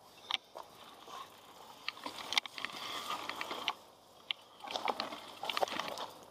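Mountain bike riding over a rough, rocky trail: a rolling crunch of tyres on stones that swells and fades, with scattered sharp clicks and knocks from stones and the rattling bike.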